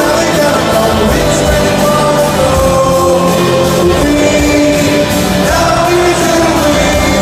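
Live rock band playing with singing in a large concert hall, with long held notes over a steady, full backing.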